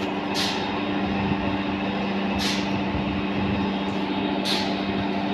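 Sugar-factory machinery running with a steady, loud hum, and a short hiss about every two seconds.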